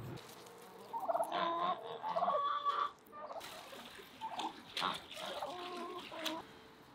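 Farmyard poultry calling in two bouts, about a second in and again around four seconds in: turkeys gobbling in quavering bursts among other fowl calls.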